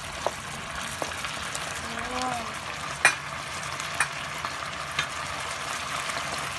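Beef in a soy and oyster sauce sizzling and bubbling in a nonstick pan, a steady hiss. A few sharp knocks come through it about a second apart, the loudest about three seconds in.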